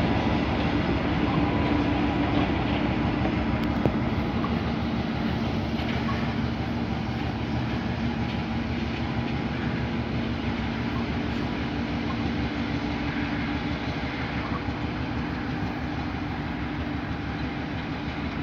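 GA8 diesel locomotive pulling a ballast work train, its engine running with a steady drone that slowly fades as the train moves away.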